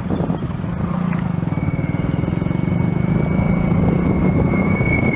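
Royal Enfield Bullet single-cylinder four-stroke engine running at a steady cruise, its exhaust beat coming in quick, even pulses.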